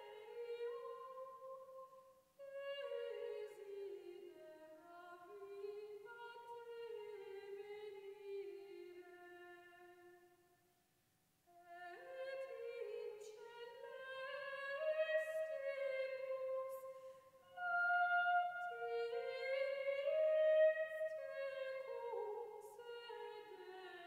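Slow, unaccompanied solo singing in a high voice: a single melodic line in long phrases, with a brief pause a couple of seconds in, a full break a little before the midpoint, and another short pause near three-quarters through.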